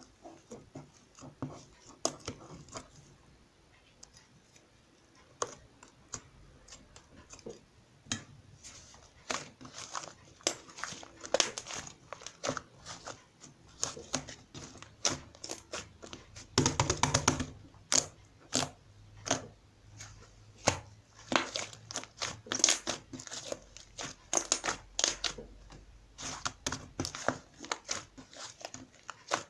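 Hands squishing, pressing and stretching a fluffy clay slime, giving irregular sticky crackling and popping clicks. A denser, louder run of crackles comes a little over halfway through.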